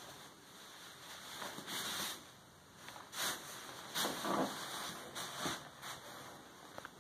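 Fabric rustling and soft bumps of a toddler clambering over upholstered sofa cushions and a large soft cushion, in several short bursts.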